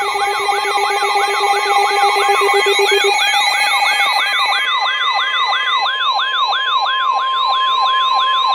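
Weather radio alert alarms sounding together for a tornado warning: a siren-like tone falling in pitch over and over, about three sweeps a second, layered over several steady alarm tones. The steady tones drop out one by one between about three and six seconds in, leaving a single steady tone under the sweeping alarm.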